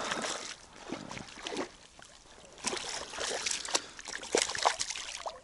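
Small hooked pike thrashing at the water surface beside an inflatable boat: water splashing and sloshing in irregular bursts.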